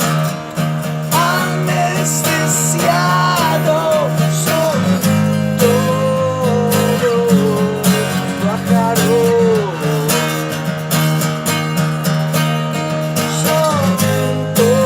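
Acoustic song: a strummed acoustic guitar keeps up steady chords while a wavering, gliding melody line runs above it.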